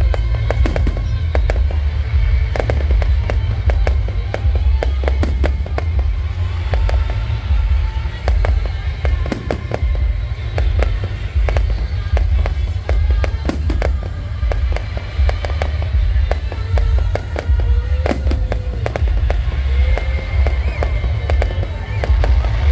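Fireworks display: a dense, continuous run of bangs and crackles, over a constant low rumble.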